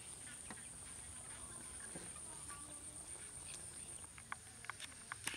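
Insects trilling steadily at a high pitch, with a few faint clicks near the end.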